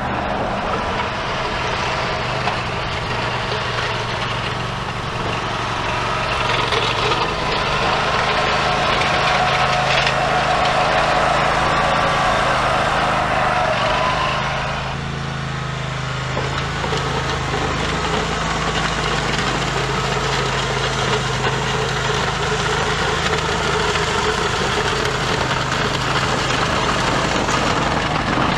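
Engine of a Scag Tiger Cat zero-turn mower running steadily under load, with a front blade scraping and pushing gravel across a dirt driveway. The engine gets louder through the middle and eases off about halfway.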